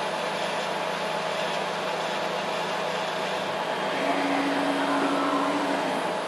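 Steady whooshing machine noise, like a fan or motor running, with a faint low hum joining about four seconds in and dropping out shortly before the end.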